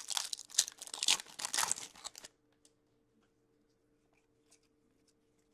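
Foil hockey card pack torn open and crinkled for about two seconds, followed by a few faint ticks as the cards are handled.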